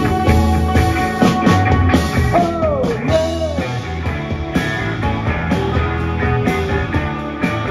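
Live rock band playing: electric guitars, bass guitar and drum kit. About two to three seconds in, a note slides down in pitch, followed by a second, shorter downward slide.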